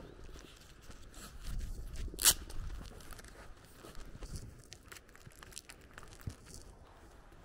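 A thin plastic bag crinkling and rustling in the hand close to the microphone, with scattered crackles and one sharp, loud crackle about two seconds in.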